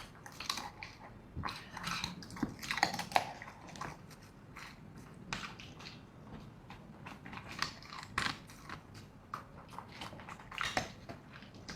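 A border collie eating from its bowl: an irregular run of short chews and bites, some crisp and some wet.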